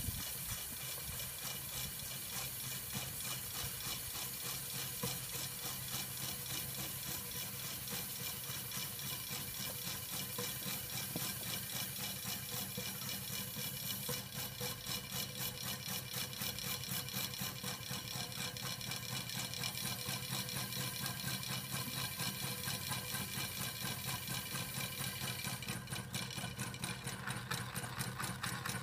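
Steam engine of a home-built live-steam Hornsby chain crawler model running, with a steady rhythmic beat over a hiss of steam. The beat becomes more distinct about halfway through and again near the end.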